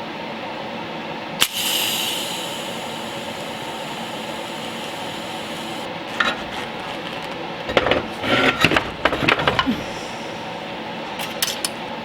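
Welding arc running steadily at 140 amps with a continuous hissing crackle as a casting is welded to a steel stand. A sharp click comes about a second and a half in, and a run of clicks and knocks follows around eight to ten seconds in.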